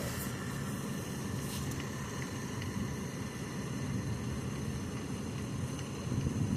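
Steady engine drone of construction machinery at a concrete pour, a low rumble with faint high whining tones over it.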